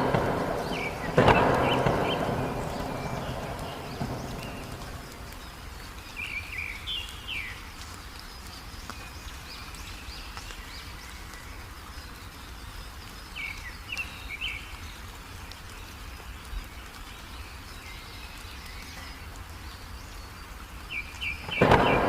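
Steady heavy rain with sharp thunderclaps that rumble away over a few seconds, two at the start and another near the end. Short bird chirps come at intervals through the rain.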